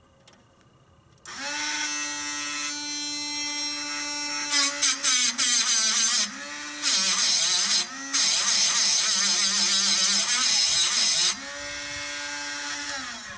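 A small power-tool motor spins a sharpening stone in a sawmill tooth-sharpening jig. It starts about a second in and runs free with a steady whine. For several seconds it grinds a blunt saw tooth, the pitch sagging and wavering under load beneath a harsh grinding hiss. It then runs free again and winds down near the end.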